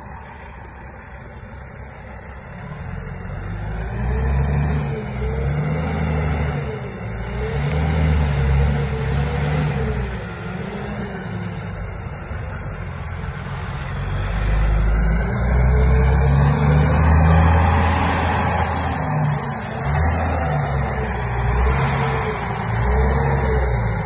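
Peterbilt 379 semi tractor's diesel engine pulling a lowboy trailer loaded with a bulldozer. The engine note rises and falls again and again and grows louder as the truck draws near, loudest a little past the middle.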